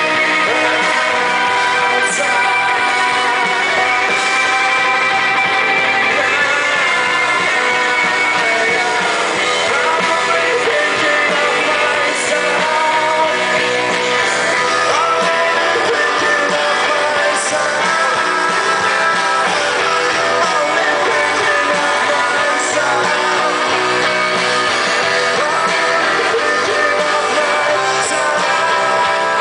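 Rock band playing live: electric guitars and drums with a sung vocal, steady and loud throughout.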